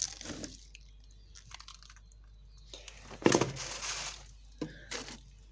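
Plastic bags of small fish crinkling as they are handled, in a few short bursts: briefly at the start, a longer stretch about three seconds in, and once more near the end.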